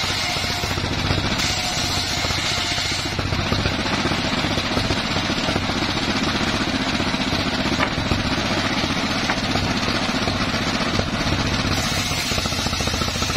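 Engine-driven homemade table circular saw running steadily, its blade ripping mahogany planks lengthwise over the constant drone of the engine that drives it.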